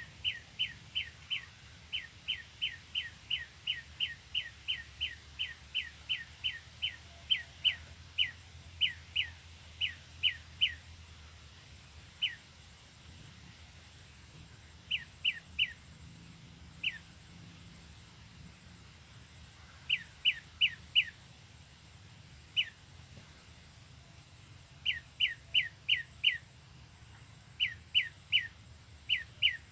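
A prenjak lumut calling: short, sharp, down-slurred chip notes, about three a second in a fast run for the first ten seconds, then in scattered bursts of three to five. A steady high hiss runs under the calls and fades out about twenty seconds in.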